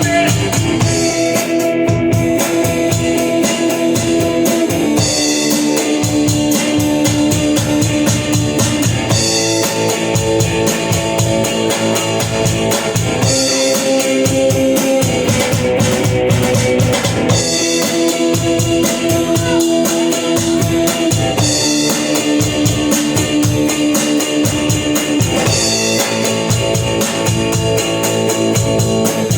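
Rock music with a drum kit and guitar playing and no vocals. The chords change every few seconds over a steady beat with a kick drum.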